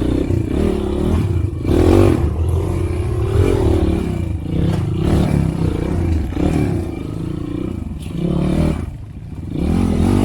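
Trail motorcycle engine revving up and down unevenly, with clattering and scraping. The engine swells about two seconds in and again near the end, and drops briefly just before.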